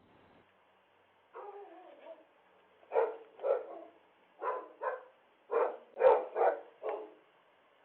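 A dog barking eight times in quick pairs, after a short whine that falls in pitch.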